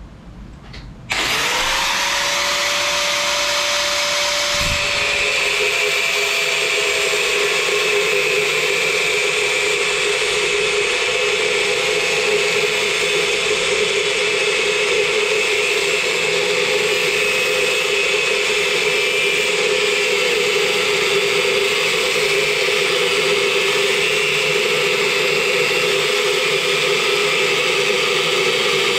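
Angle grinder switched on about a second in, its whine rising as the motor spins up. From about five seconds its cut-off disc bites into a metal plate: a steady, loud grinding with the motor's pitch pulled slightly lower under load.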